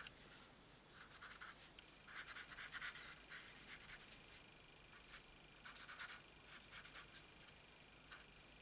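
Stampin' Blends alcohol marker scribbling on card stock, laying in shading: faint, quick scratchy strokes in irregular bursts with short pauses between.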